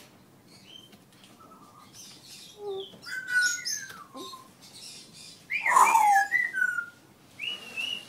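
African grey parrot whistling and chirping: a string of calls that glide up and down in pitch, starting about three seconds in and loudest just before the end.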